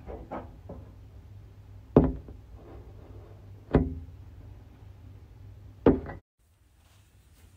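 Three sharp knocks about two seconds apart, each with a brief ring, over a steady low hum; the sound cuts off abruptly near the end.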